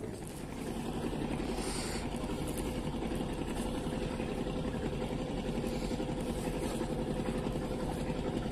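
An engine running steadily at an even pitch, a low hum with a fast, even flutter.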